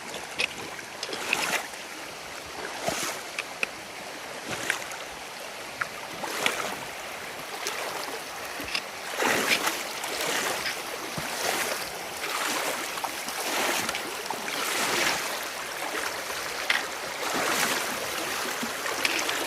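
Feet wading through a shallow, cold mountain stream, the water sloshing and splashing in a surge with each step about every second or two, over the steady rush of the flowing stream.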